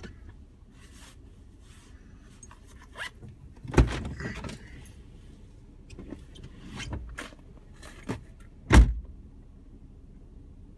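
A few knocks and clicks over a low steady hum in a stopped off-road vehicle, the two loudest about four and nine seconds in.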